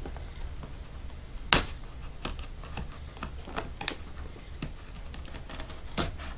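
A pocket knife slitting the tape on a cardboard laptop box: scattered sharp clicks and scratches of the blade against tape and box, with one louder snap about one and a half seconds in.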